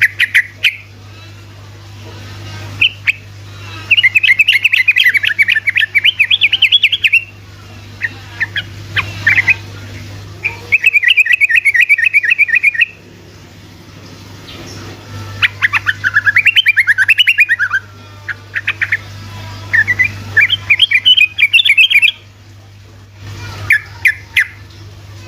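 Trucukan (yellow-vented bulbul) singing its rapid rolling 'ropelan' song: four bouts of fast repeated notes, each two to three seconds long, with short single chirps between them. A steady low hum runs underneath.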